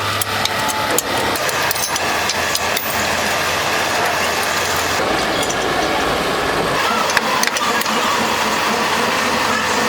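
Steady machine running noise with a low hum, broken by scattered clicks and knocks.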